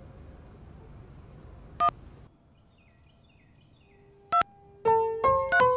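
Smartphone keypad dialling tones: a short touch-tone beep about two seconds in and another about four seconds in, with faint bird chirps between them. From about five seconds in, a run of quick piano notes.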